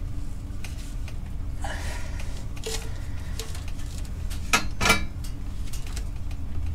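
Socket and wrench clinking on a flywheel bolt while it is being tightened, with a few faint ticks and two sharp metallic clicks a little past the middle, over a steady low hum.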